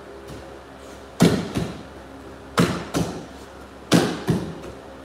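Three breakfalls onto tatami mats as a partner is thrown over and over. Each fall is a sharp slap and thud followed by a second, smaller hit about a third of a second later.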